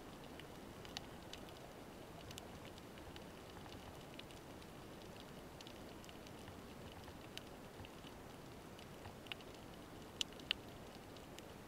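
Underwater ambience picked up by a camera in its housing: a faint steady hiss with scattered sharp clicks and crackles, two louder clicks about ten seconds in.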